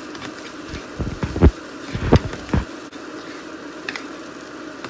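Spatula stirring and scraping fried rice in a nonstick frying pan, with a run of knocks and scrapes against the pan between about one and three seconds in, over a steady background hum.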